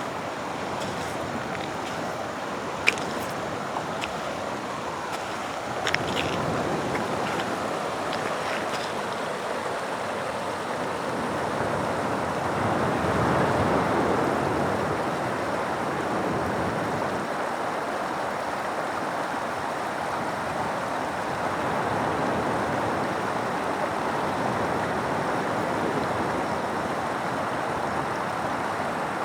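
Atlantic waves breaking and washing on a rocky shore, a steady rushing surf that swells louder about halfway through. A few sharp clicks sound in the first third.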